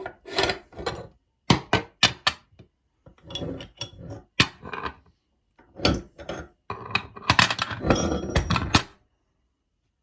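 Meat grinder working: an uneven series of sharp clicks and knocks with rasping scrapes, then a denser stretch of scraping and clattering that stops abruptly about nine seconds in.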